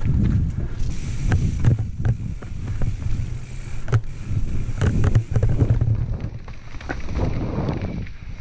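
Mountain bike descending rocky singletrack at speed: tyres rolling over rock slabs and loose stones with a steady low rumble, broken by frequent sharp knocks and rattles from the bike over the rough ground. Wind buffets the microphone.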